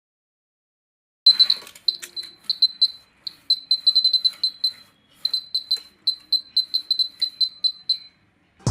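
Buzzer of a homemade earthquake-detector alarm sounding in many short, uneven beeps of one high tone, starting about a second in, with faint clicks. The stop-start beeping is the sign of the shaken detector's contact closing and opening the circuit.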